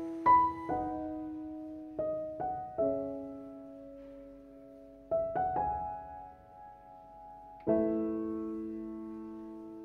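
Slow, soft solo piano music: single notes and chords struck a few at a time, each left to ring and fade. A fresh chord comes in about two, five and eight seconds in.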